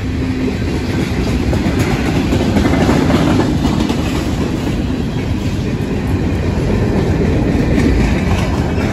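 A freight train's cars (tank cars, covered hoppers, gondolas) rolling past close by, steel wheels rumbling steadily on the rails with a clickety-clack.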